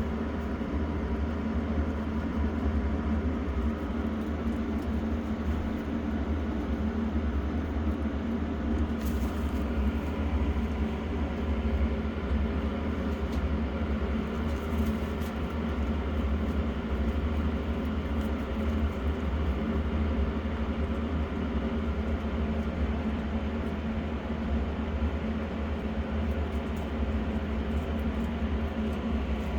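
Electric fan running steadily and loudly: a constant low hum with an even whir above it.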